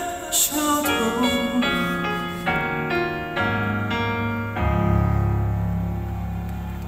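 Piano playing the closing bars of a slow song with no singing: a run of chords, then a low chord held and slowly dying away.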